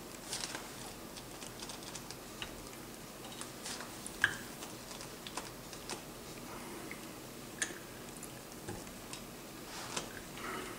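Brake master cylinder being bench bled: faint, scattered small clicks and ticks, with a couple of short clear plinks, as its piston is worked and the air is bled out of it into the fluid reservoir.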